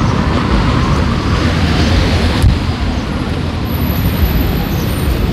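Road traffic noise from cars passing on a city street: a steady low rumble, with a sharp click about halfway through.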